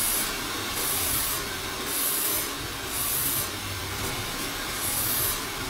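Handheld hair dryer blowing steadily while a round bristle brush is pulled back through short hair, with a brief high swish about once a second as the brush passes.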